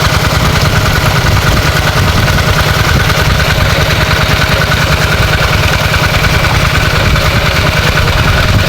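Engine-driven water pump running steadily, pumping a small pond dry.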